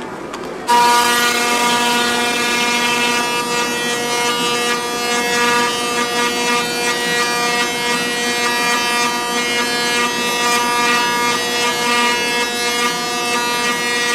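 Tesla coil firing: its spark arc makes a loud, steady electric buzz at a single pitch, with a crackle on top. The buzz switches on abruptly about a second in.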